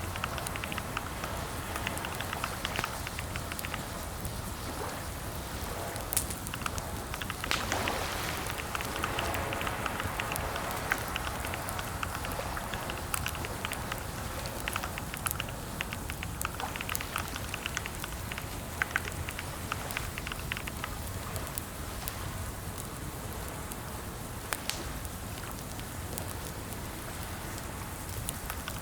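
Typing on a computer keyboard: bursts of quick key clicks broken by pauses, over a steady low background noise.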